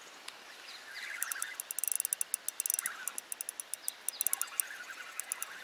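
Fishing reel clicking in several quick runs of rapid ticks as line is wound in.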